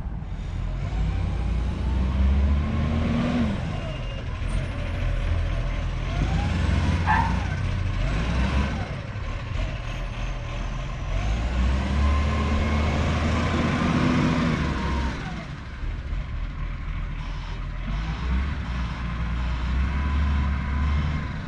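Garbage truck running, its engine revving up and dropping back in repeated cycles over a steady low rumble.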